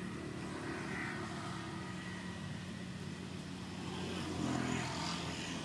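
An engine running steadily with a low hum, growing somewhat louder about four to five seconds in, as if it is coming closer.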